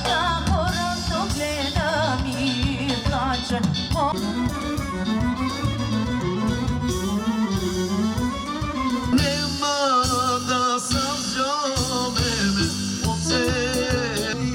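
Music: a singing voice over instruments with a steady beat.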